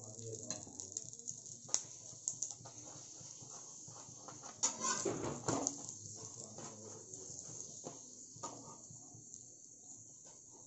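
A chapati cooking on a hot oiled tawa: a faint steady sizzle, with scattered scrapes and taps of a metal spoon and a slotted metal spatula on the pan. The loudest scraping comes about five seconds in, as the spatula slides under the chapati and lifts it.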